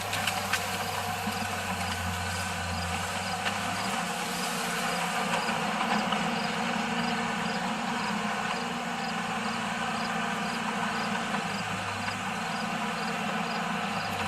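Heavy earthmoving machine's engine running steadily, its pitch rising about four seconds in as the revs pick up, and dipping briefly near the end.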